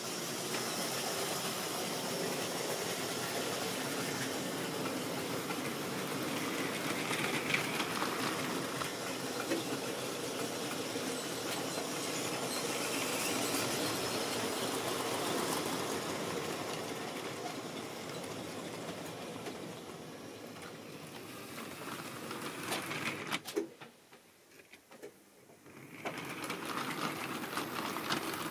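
Tri-ang model train running: a model diesel locomotive's electric motor whirs and the wagon wheels rattle steadily on the track. The sound drops away sharply for about two seconds near the end, then comes back.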